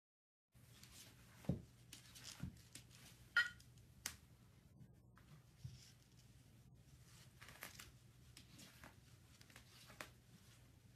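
Faint scattered knocks and scrapes of a cylindrical canister rolling and bumping on a wooden floor as cats paw at it, starting about half a second in. The sharpest knocks come about a second and a half in and at about three and a half seconds.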